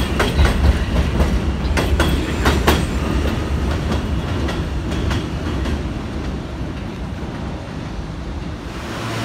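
R160 New York City subway train pulling out along an elevated track: wheels clicking over rail joints as the last cars pass, then a low rumble that fades steadily as the train moves away.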